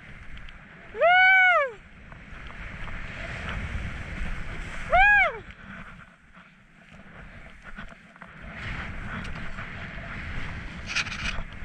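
Skis sliding and scraping over snow, with wind rushing on the helmet-mounted GoPro's microphone. Twice, about a second in and again about five seconds in, a short high call rises and falls in pitch.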